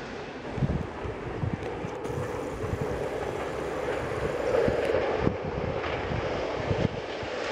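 Wind buffeting the microphone, with an Alstom X'Trapolis electric multiple-unit train approaching along the track, its running sound growing louder through the second half.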